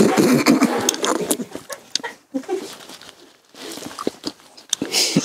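Close-up wet licking and slurping mouth noises as Nutella is licked off a bare back. Muffled groaning voices come in the first second, then scattered short wet clicks.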